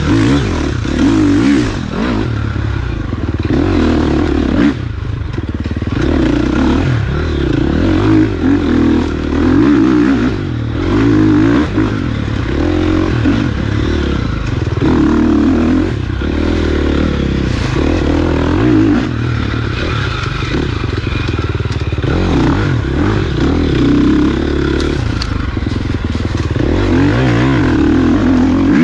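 Off-road dirt bike engine revving hard and backing off over and over, a fresh burst of throttle every second or two.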